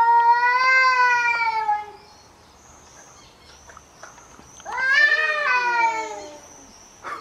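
Two cats in a fight standoff yowling at each other: one long, drawn-out yowl of about two seconds at the start, then another yowl a little past halfway that rises and then falls. This is the aggressive caterwauling of a cat fight.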